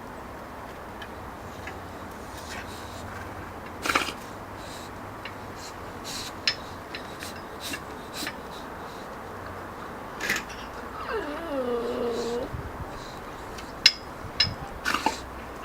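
Puppies at play: scattered light clicks and knocks from a boxer puppy and a teacup Yorkshire terrier moving and tussling, with one short pitched dog vocalisation, a whine or growl that bends in pitch, about eleven seconds in.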